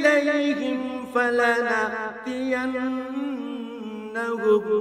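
A male reciter chanting Arabic Quran verses in the melodic tajweed style, holding long, drawn-out notes that glide and bend in pitch.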